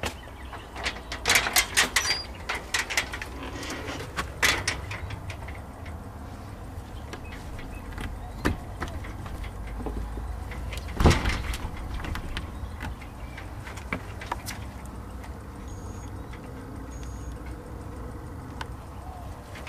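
A run of clattering knocks and clicks, then one loud thud a little past halfway, over a steady low rumble.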